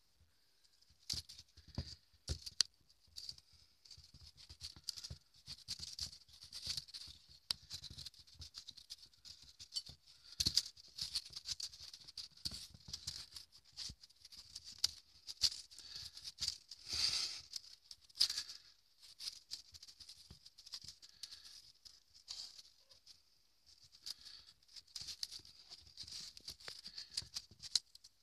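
Kittens scrambling and pouncing after a leaf dragged on a stick across carpet: an irregular run of soft paw pats, scuffles and rustles, with a louder flurry of rustling about seventeen seconds in.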